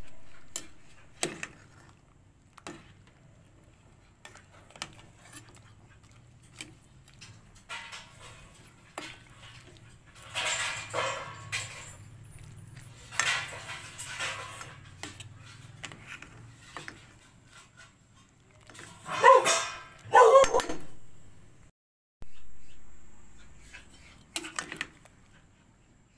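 Short, loud animal calls, one burst about 19 seconds in and another about a second later, over a faint steady low hum and scattered light clicks.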